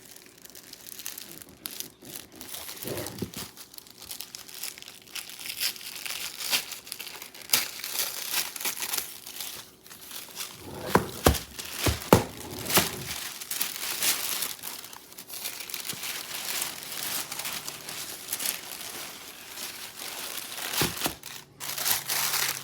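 Wrapping paper crinkling and rustling in irregular bursts as a package is unwrapped, with some tearing and a few louder handling knocks about halfway through.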